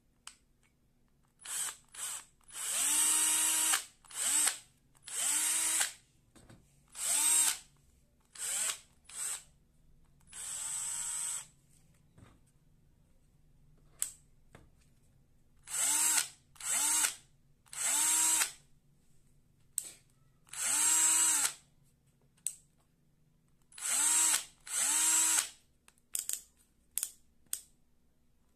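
Bosch GSB 120-LI cordless drill/driver run in about a dozen short trigger pulls: each time the motor whines up to speed within a fraction of a second, runs briefly and stops. One run near the middle is softer and longer.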